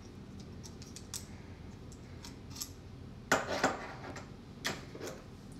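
Small metal clicks, then two short bursts of louder metallic clicking and clatter about three and a half and nearly five seconds in: a Switch Tech lock being pulled out of a ball door knob.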